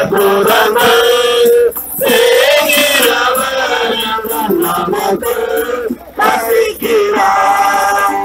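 A group of men singing a hymn together in long held notes, one voice led through a microphone, with brief breaks between phrases.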